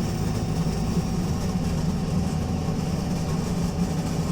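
ADL Enviro 200 MMC single-deck bus engine running with a steady, loud low rumble.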